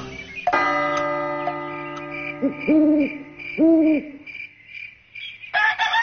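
Owl hoots, three times, over a single bell-like chime that rings and slowly fades, with a faint regular ticking about four times a second. Near the end a rooster starts to crow. Together they are sound effects marking night passing into morning.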